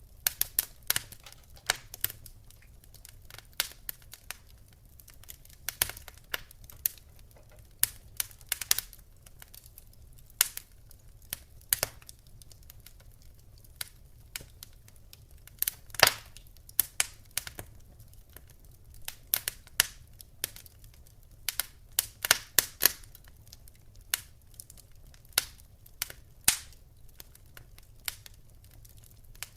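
Wood fire crackling: irregular sharp pops and snaps, a few of them louder, over a low steady hum.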